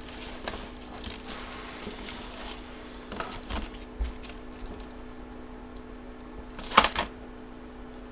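Hands handling and unwrapping the packaging around a graded comic slab: scattered small clicks and crinkles, with a few sharper crackles near the end, over a steady low hum.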